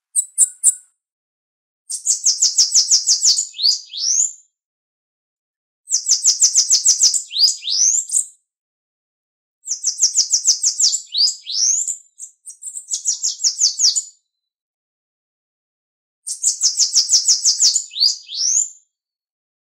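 Bananaquit (Coereba flaveola) singing: four or five high, fast runs of clipped notes, each ending in a couple of quick rising and falling sweeps, with silent gaps of a second or two between phrases. A few short high notes come right at the start.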